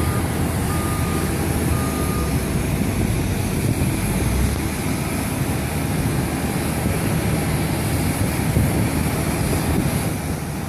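Steady rumble and hiss inside an Airbus A310 airliner's cabin, from its engines and air system while still on the ground before takeoff. A few short faint beeps sound in the first two seconds.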